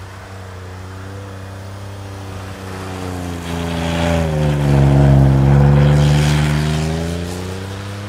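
Ford F-150's twin-turbo EcoBoost V6 running hard while the truck spins donuts in snow, its wheels throwing up spray. The engine note grows louder as the truck swings closest about halfway through, dipping in pitch there, then fades and rises again as it pulls away.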